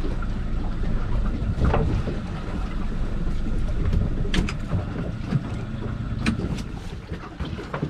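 Steady low rumble of a small boat out on rough water in wind, with a few sharp clicks or knocks.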